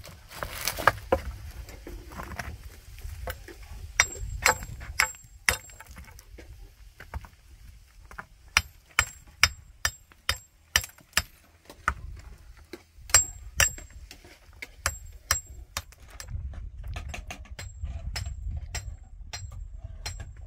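A series of sharp clinks with a short metallic ring, hard object striking hard object, coming in irregular runs of several strikes at a time from about four seconds in. A steady low rumble lies underneath.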